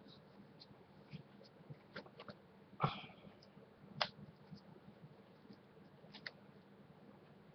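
Plastic shrink-wrap on a Blu-ray case being picked at and torn open by hand: a few scattered sharp crinkles and clicks, the loudest about three seconds in.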